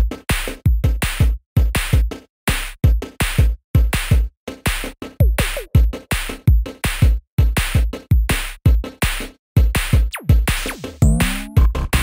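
Electronic background music: a choppy drum-machine beat of sharp hits with deep kicks, cutting off abruptly between strokes.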